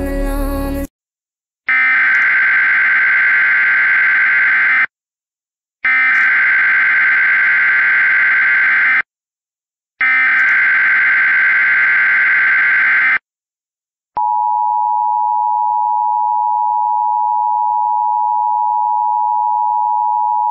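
A song cuts off, then three Emergency Alert System SAME header bursts: harsh, buzzing digital data warbles of about three seconds each with a second of silence between them. About fourteen seconds in, the EAS attention signal starts, a steady, loud two-tone beep that opens an alert.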